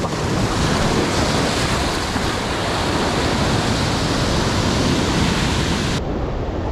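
Rough sea breaking and washing over shoreline rocks, a dense steady rush of surf with wind buffeting the microphone. About six seconds in, the high hiss drops away abruptly.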